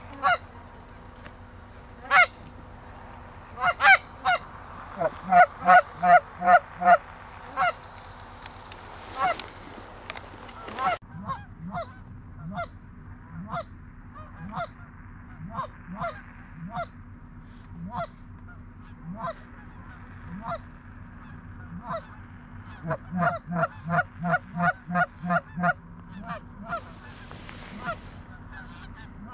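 Canada geese honking: many short honks and clucks, with quick runs of rapid calling a few seconds in and again near the end.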